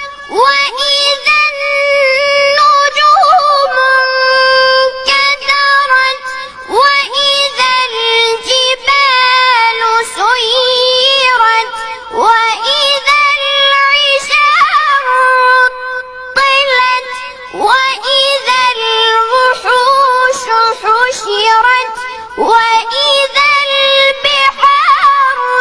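A boy's high voice reciting the Quran in the melodic, drawn-out mujawwad style, holding long ornamented notes with sliding turns. The recitation comes in long phrases separated by brief pauses for breath.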